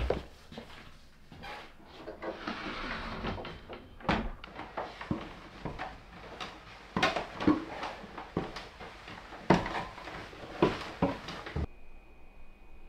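Knocks and thumps of someone moving about a wooden chalet, with a short hiss about two seconds in, then heavy booted footsteps going down a wooden staircase about once a second. The knocking stops shortly before the end, leaving a faint steady high tone.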